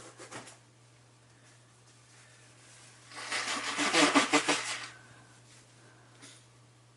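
A man's wet, fluttering blast through the nose into his hands, lasting about a second and a half and starting about three seconds in. A short snuffle comes right at the start.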